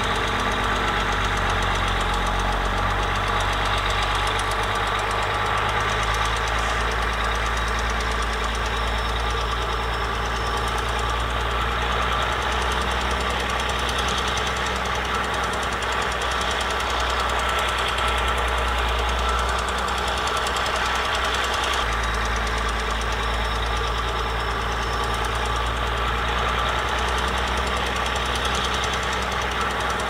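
Crawler bulldozer's diesel engine running steadily under load while the blade pushes wet soil; the engine note shifts a few times.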